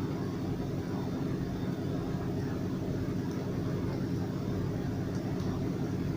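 Steady low rumbling hum from the kitchen stove area, unbroken, with no distinct knocks or voices.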